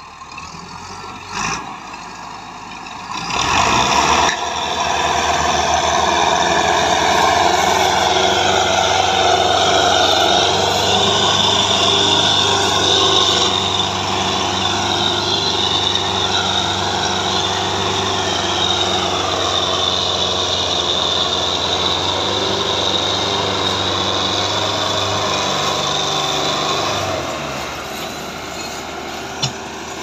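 Diesel tractor engines working hard under heavy load: a Massey Ferguson 385 pulling a Belarus tractor and its fully loaded sugarcane trolley. The engines swell to a loud, steady run about three seconds in and ease off a few seconds before the end.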